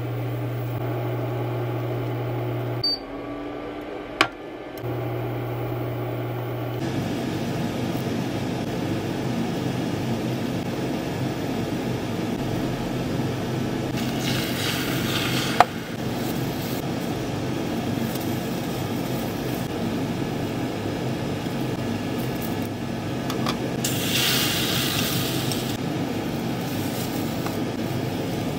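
A steady mechanical hum and whir runs throughout. An egg mixture sizzles as it is poured into a hot oiled tamagoyaki pan about 14 seconds in, and there is another short sizzle near the end.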